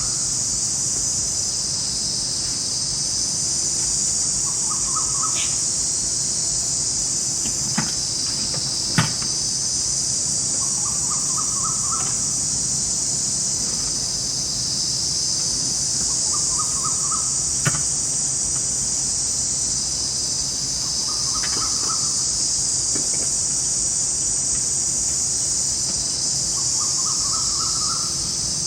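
Night forest ambience: a dense, steady chorus of insects shrilling high, with a short rising call of quick stepped notes repeating about every five seconds. Three sharp clicks stand out, two close together about eight and nine seconds in and one more near eighteen seconds.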